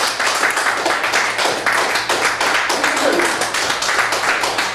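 Audience applauding, a dense run of irregular hand claps.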